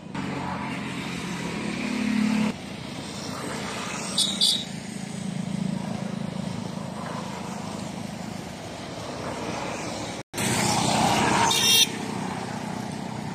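Motorcycle engines passing on a road: a steady engine hum that swells as the bikes go by. The sound breaks off abruptly twice and comes back louder after the second break, about ten seconds in.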